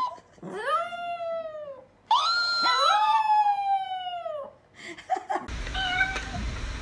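A Chihuahua howling: two long howls, each rising and then sliding down in pitch. About five and a half seconds in, the howling stops and a steady low hum with a faint short tone follows.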